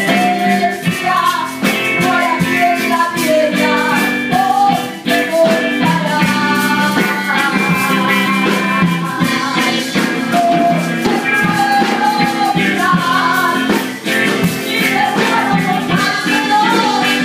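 A woman singing a melody into a handheld microphone, amplified through a PA speaker, over steady instrumental accompaniment.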